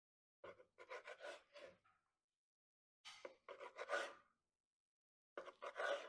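Faint crackling and rubbing of fingertips pressing into the firm, glazed bark of a smoked meatloaf on a wooden cutting board, in three short bursts a couple of seconds apart.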